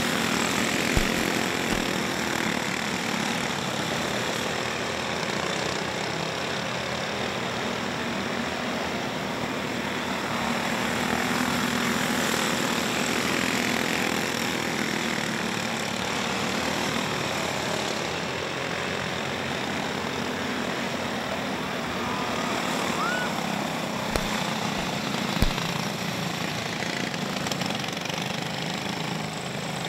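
Cage go-kart engines running flat out in a race, a steady mixed buzz from several karts that swells and eases slightly as the field goes round. A couple of short sharp knocks come near the end.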